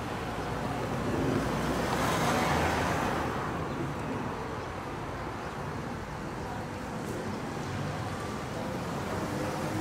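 Street traffic: a car passes close by, loudest about two and a half seconds in, then a steady roadway hum as an electric Škoda 14TrSF trolleybus rolls up.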